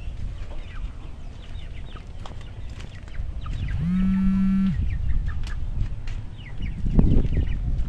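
A duckling peeping repeatedly in short, high notes that drop in pitch. About four seconds in, a loud, steady pitched call or tone sounds for about a second, and there is a brief rustling thump near the end.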